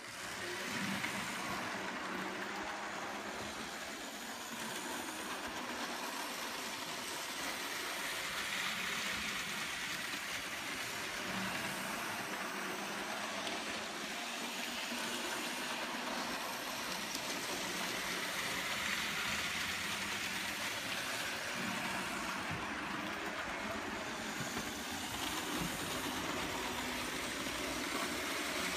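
Märklin model trains running on the layout's track: a steady rolling rattle and motor hum that starts suddenly and swells and eases several times as trains pass close.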